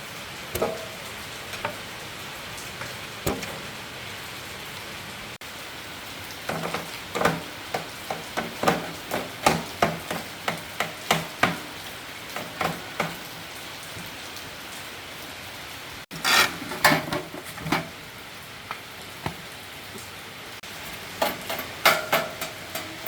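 Steady hiss of rain, with a string of sharp clicks and light knocks on top, about two a second for several seconds, then two short clusters later.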